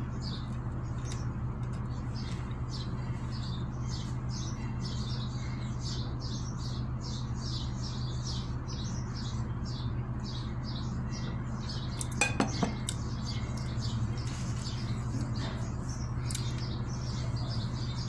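Rapid, steady high-pitched chirping, a few chirps a second, over a low steady hum, with a brief clatter of cutlery or dishes about twelve seconds in.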